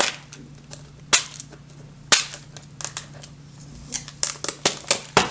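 Sharp clicks of handling a plastic screw-assortment box and small screws: a few scattered clicks, then a quicker run of about six near the end.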